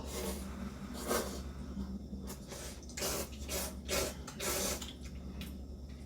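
Ramyeon noodles slurped in a series of short hissing pulls, about eight in a few seconds, over a steady low hum.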